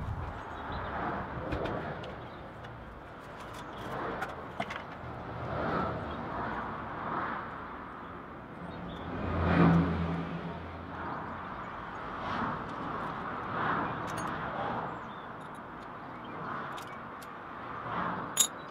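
Road traffic passing, one vehicle louder and closer about halfway through, with a sharp metallic click near the end.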